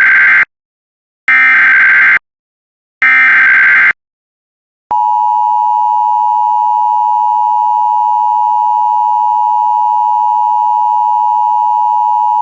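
Emergency Alert System SAME header: the end of one burst of screechy digital data tones, then two more bursts of about a second each with short gaps between. They are followed by the EAS two-tone attention signal (853 and 960 Hz sounding together), held steady for about eight seconds.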